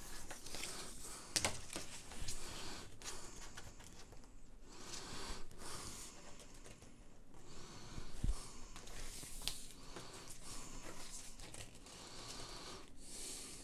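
Hands sliding a soft tape measure along a large vinyl desk pad: intermittent rustling and scraping, with a few light knocks.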